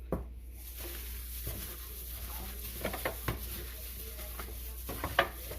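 Raw chicken strips coated in hot sauce and dry seasonings being mixed by hand in a bowl: soft wet squishing with a few light taps, about a second and a half, three seconds and five seconds in.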